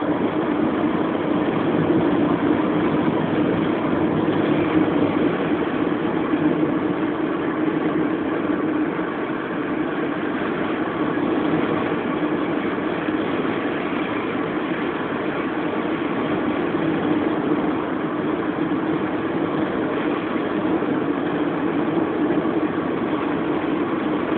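Steady engine and road noise of a car driving at a constant speed, heard from inside the cabin.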